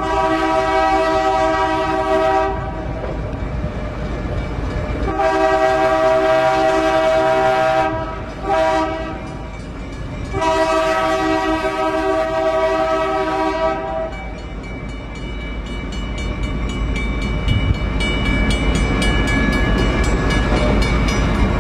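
EMD GP9R locomotive's air horn heard from inside the cab, sounding the grade-crossing signal: the end of one long blast, then a long, a short and a long blast. Under and after the horn the locomotive's diesel engine and the train's wheels run on with a steady rumble.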